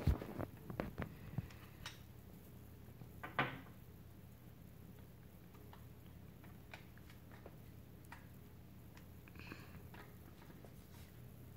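Metal clicks and clacks of a SIG Sauer rifle's parts being handled and fitted back together during reassembly: a quick run of clicks in the first second and a half, a louder clack about three and a half seconds in, then only a few faint ticks.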